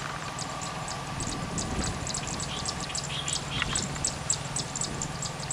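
Small birds chirping in quick, high, repeated notes over a steady low hum.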